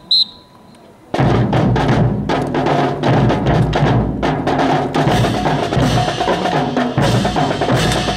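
A short whistle blast, then music with heavy drums and percussion starts about a second in and plays on.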